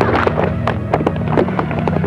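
A quick, irregular run of sharp cracks and pops over a steady low hum.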